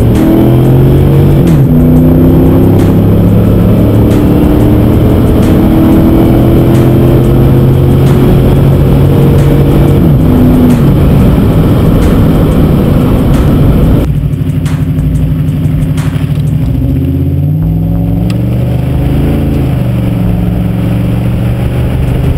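Dodge Dakota's 4.7L Magnum V8 engine and exhaust under way, droning at a steady pitch that steps up and down with the throttle. About 14 seconds in the sound cuts to a quieter take with more road and tyre noise, and the engine note rises a few times as the truck accelerates.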